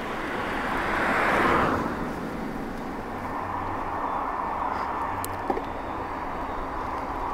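Wind rushing over the microphone while riding into a headwind, with steady road noise. A vehicle passes about a second in, its sound rising and fading.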